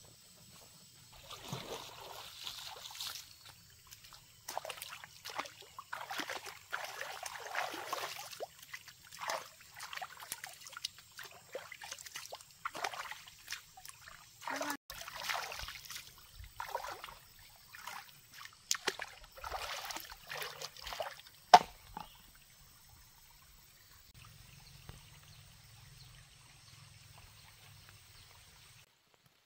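Hands splashing and scooping water in a shallow stream, a run of irregular splashes that stops about three-quarters of the way through. One sharp knock near the end of the splashing is the loudest sound.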